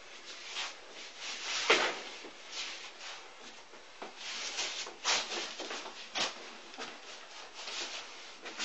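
Forearms and hands rubbing and slapping against each other in a Wing Chun chi sao (sticky hands) drill, with shuffling feet and clothing rustle. Irregular soft contacts throughout, with sharper hits a little under two seconds in and about five seconds in.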